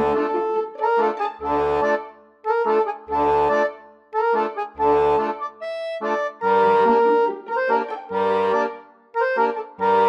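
Instrumental background music: a melody of sustained, overtone-rich notes over a bass note that sounds about every second and a half.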